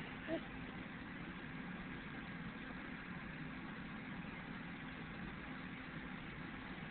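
A steady low hum over a faint even hiss, with a brief soft sound just after the start.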